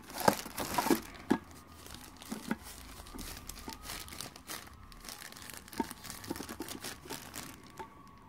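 A thin clear plastic bag wrapped around a mug crinkling as it is grabbed and handled. The crackling is densest and loudest in the first second or so, then goes on in lighter, scattered crinkles.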